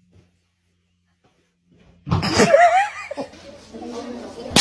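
Near silence for about two seconds, then a person laughing.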